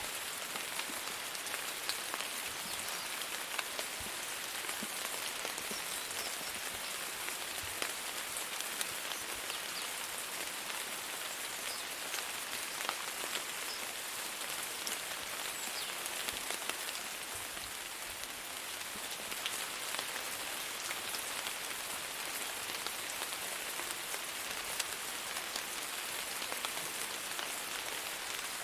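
Steady rain falling, a continuous even hiss with scattered individual drops ticking.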